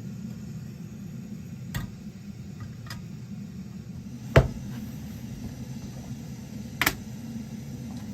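A few sharp metallic clinks from a metal army mess kit being handled, over a steady low rumble. The loudest clink comes about halfway through.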